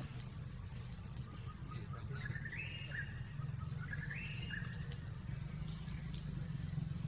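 A bird calls twice, about two seconds in and again about a second later, each call a short run of notes stepping up in pitch. Under it runs a steady low hum and a thin, steady high tone.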